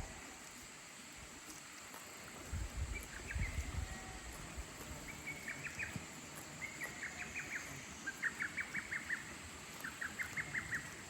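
A small bird singing a series of short trilled phrases, each a quick run of sharp notes, repeated about once a second. A few low thuds or rumbles come early on, about two to four seconds in.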